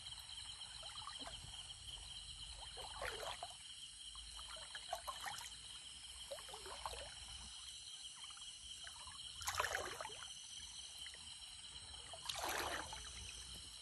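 Steady chorus of night insects trilling in several high bands, with irregular splashes of shallow water as a person wades, strikes a fish with a blade and lifts it out. The loudest splashes come about ten and twelve and a half seconds in.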